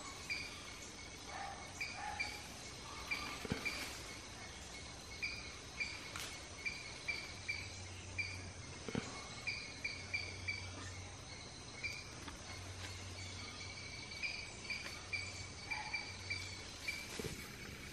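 Forest ambience: insects droning steadily at a high pitch, with a short high chirp repeated about twice a second. A few soft clicks are scattered through it.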